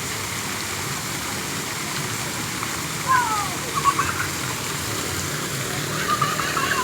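Steady rush of running water, with a few short high-pitched sounds about three seconds in and again near the end.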